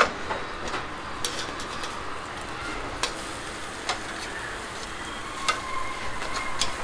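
Köfte-topped bread halves sizzling steadily on a hot cast-iron grill grate, with sharp clicks of metal tongs on the grate, about half a dozen, as the breads are flipped over.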